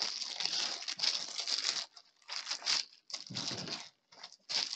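Clear plastic sleeve crinkling in irregular bursts as paper instruction booklets are slid back into it, with brief pauses between handlings.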